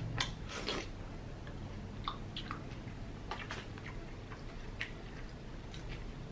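A person eating chili with a spoon from a paper cup: quiet chewing with a dozen or so scattered short sharp clicks from the mouth and the spoon.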